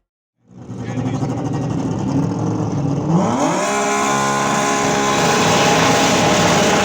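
A tuned Audi S2's five-cylinder turbo engine running rough and low, then revving up sharply about three seconds in and held at steady high revs, as if staged on the launch limiter before the start.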